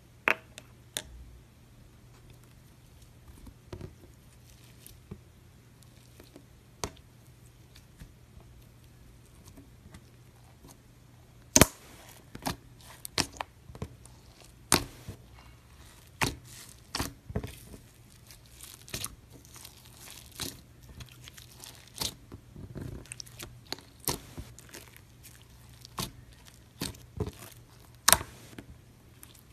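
Fingers pressing and poking clear slime loaded with sequins and glitter flakes, making sharp pops and crackles. They come only now and then at first, then about one or two a second from roughly twelve seconds in.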